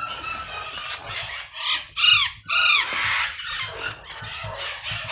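Captive birds squawking: a run of harsh calls, the loudest two short arched calls about two seconds in.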